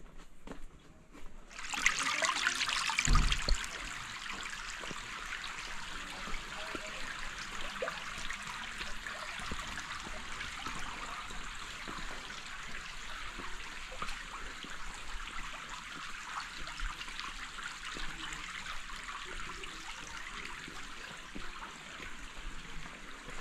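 Water running and trickling steadily in a small stream channel, setting in suddenly about two seconds in. A dull low thump comes about a second later.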